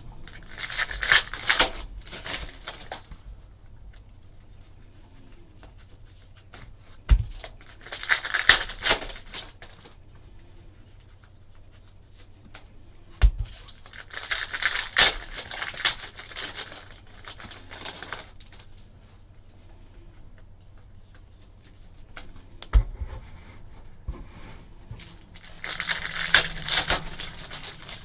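Foil wrappers of trading-card packs being torn open and crinkled, in four bursts of rustling several seconds apart. A few short sharp knocks on the table come between them.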